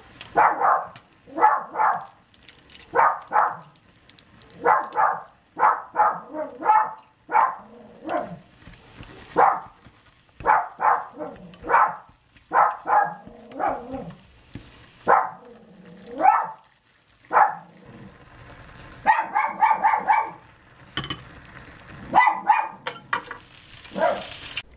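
Pet poodle barking over and over in short, loud yaps, irregularly spaced, some coming in quick runs of two or three.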